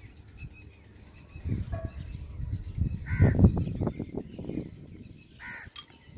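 A crow cawing twice, about three seconds in and again near the end, over soft handling sounds as golgappa shells are filled.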